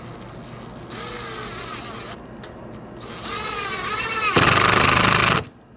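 Power drill driving a screw into wood. The motor whine rises and falls as the trigger is eased on and off, then it runs loudly at full speed for about a second near the end and stops suddenly.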